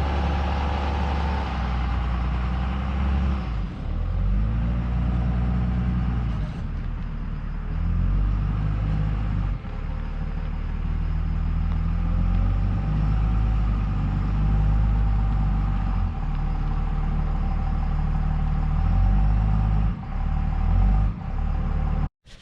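A heavy vehicle engine running, its revs rising and falling in steps several times. It cuts off abruptly near the end.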